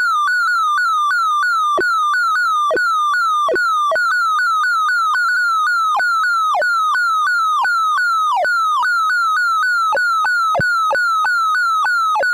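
Synthesized sorting-algorithm tones from a Tim Sort visualization: a rapid string of short electronic beeps, each sliding down in pitch, about three a second, with frequent steep downward swoops to a low pitch. The pitches track the values the algorithm is comparing and moving.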